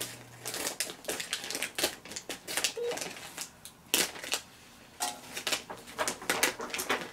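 Scissors cutting open a crinkly plastic Calbee potato chip bag: dense, irregular crackling and crinkling of the bag, with a brief lull a little past halfway.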